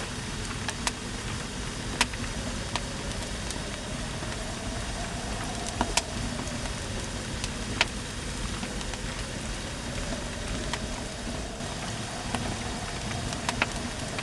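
Fireplace fire crackling: scattered sharp pops, one every second or few, over a steady low rushing noise.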